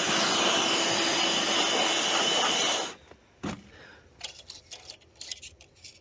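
A small handheld electric blower running steadily with a high whine as it blows debris out of a generator's engine compartment. It shuts off abruptly about three seconds in, followed by a few faint clicks and rustles.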